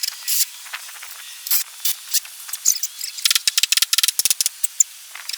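A power driver driving long wood screws into stair framing: a thin, crackly rattling with many sharp clicks and a hiss, densest in the middle. The sound has no low end, as if filtered.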